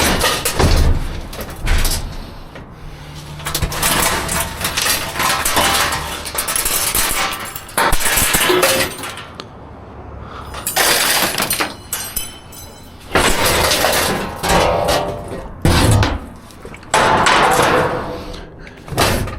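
Scrap metal and debris clattering and scraping as pieces are shifted and dragged around inside a steel dumpster, in several loud bursts with short lulls between.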